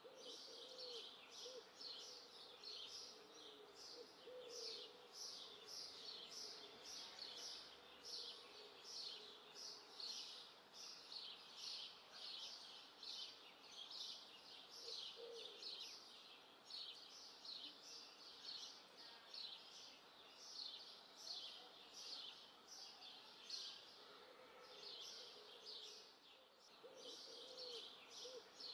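Faint birdsong: a steady run of short, high chirps, about two or three a second, with a few lower calls now and then.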